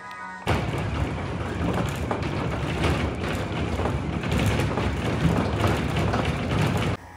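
Train running noise close by: a loud, dense rush of wheels on rail with rapid clattering. It starts abruptly about half a second in and cuts off abruptly near the end.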